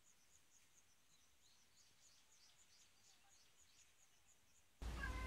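Near silence with faint high chirping, repeating about three times a second. Near the end a louder steady hum cuts in abruptly.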